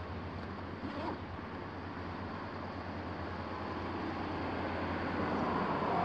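Road traffic noise with a steady low rumble, growing louder toward the end as a car approaches.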